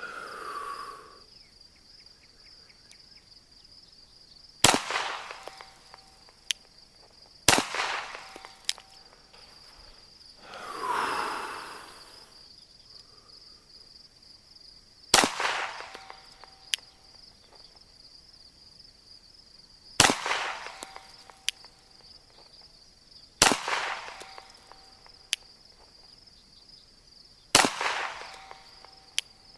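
Six single 9mm shots from a Glock 34 pistol, fired at uneven intervals a few seconds apart, each a sharp crack with a short echo. Insects keep up a steady high-pitched buzz underneath.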